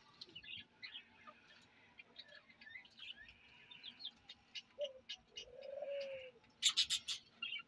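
Young chickens peeping with many short high chirps, and a low, drawn-out chicken call about five seconds in. Near the end comes a brief burst of sharp crackling rustles.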